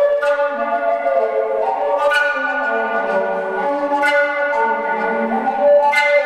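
Five-hole fipple kaval in G playing a slow melody rich in overtones, with a lower moving tone beneath it. Sharp breathy accents come about every two seconds.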